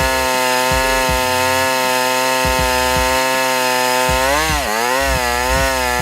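Small petrol generator engine running steadily under the load of a work light; about four and a half seconds in its speed sags briefly and the governor brings it back up.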